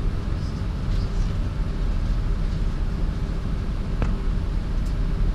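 Steady low rumble of a vehicle's engine and drivetrain heard from inside the cabin while crawling in traffic, with a single faint click about four seconds in.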